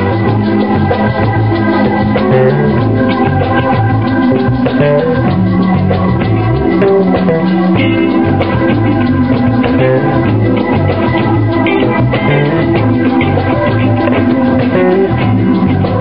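Live band playing an instrumental passage with a steady beat: keytar, electric guitar, drum kit, congas and maracas, with no singing.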